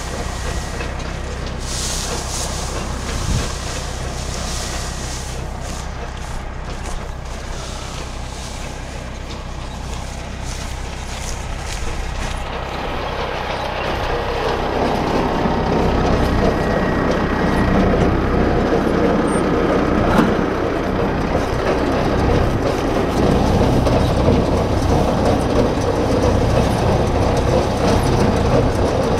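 MR70 tractor engine running with the STAR mini roll baler's machinery in a steady mechanical din. About halfway through the sound grows louder and fuller.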